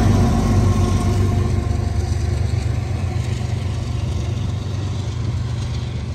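Trailing Union Pacific GE diesel-electric locomotives passing close by, their engines running with a steady low drone that slowly fades as they pull away, giving way to the rumble of the double-stack container cars on the rails.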